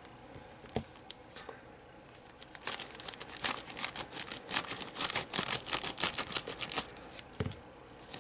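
Handling of hard plastic model-kit parts: a few single clicks, then about four seconds of rapid crackling, rustling and clicking, with a soft thump near the end.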